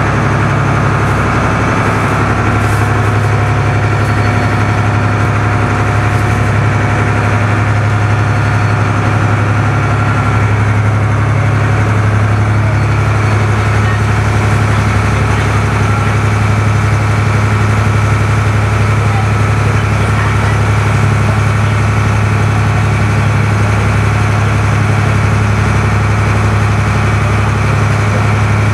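Passenger boat's engine running steadily under way, a constant low drone with water and hull noise over it.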